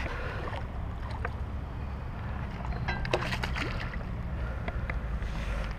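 Steady low wind rumble on the body-mounted camera's microphone, with a few light clicks and handling noises from a baitcasting reel and rod as a fish is being reeled in.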